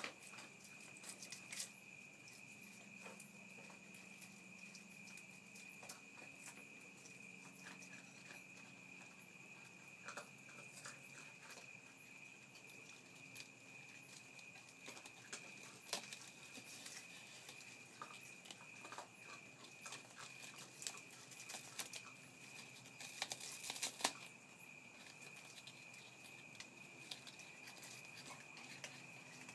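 Raccoon cubs crunching and tearing plant leaves and stems in potted foliage: scattered faint crackles and snaps, with a louder run of crunching about 23 seconds in.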